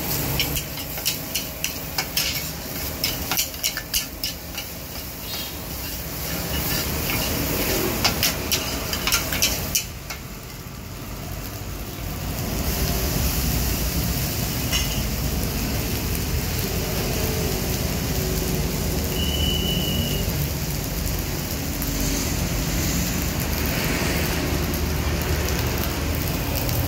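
Stir-frying fried rice in a wok: a metal ladle and spatula clank and scrape against the wok in quick, irregular strokes over a sizzling hiss. About ten seconds in the clanking mostly stops, leaving a steadier sizzle.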